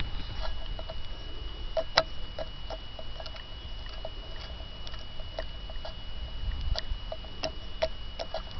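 Irregular light metallic clicks and ticks, a few a second with one sharper click about two seconds in, as the compressor wheel of a worn Garrett turbo is turned and rocked. The turbo's shaft bearings have far too much play.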